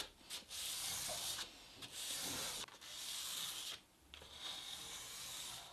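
A small knife blade ground back and forth on a wet sharpening stone in about five rasping strokes of roughly a second each, with short pauses between them. It is a coarse regrind to reshape a broken-off tip.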